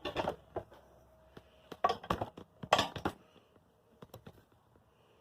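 Handling noise from the camera being carried and repositioned: a few clusters of sharp knocks and rustles, the loudest about two and three seconds in, then a few faint ticks.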